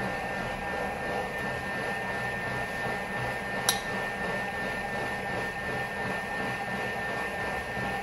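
A steady mechanical hum with a few constant tones in it. About three and a half seconds in comes a single sharp click of metal tongs against a ceramic bowl.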